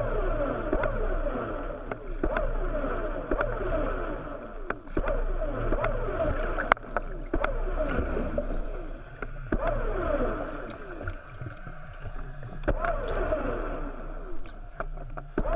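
Seawater sloshing and gurgling around a GoPro's waterproof housing bobbing at the surface. It comes in irregular surges every second or two, each carrying a spray of quick falling chirps, over a steady low hum.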